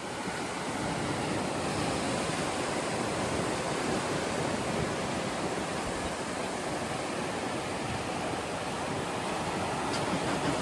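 Ocean surf washing steadily, a constant roar without distinct wave breaks.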